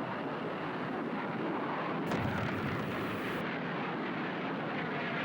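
Steady rushing roar of jet aircraft, with no distinct single blasts.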